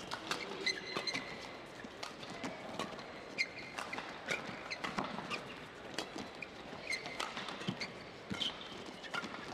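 Badminton shoes squeaking in short high chirps and tapping on the court mat, with sharp knocks of racket hits on the shuttlecock in the first seconds, over a steady hall murmur.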